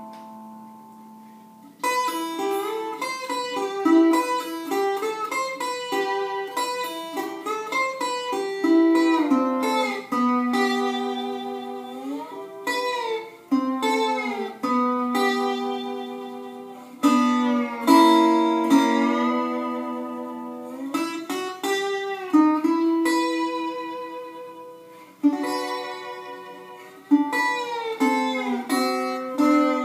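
Metal-bodied resonator guitar played lap-style with a steel slide bar and fingerpicks. A held note fades out over about the first two seconds; then a picked instrumental melody begins, many of its notes sliding up or down into pitch.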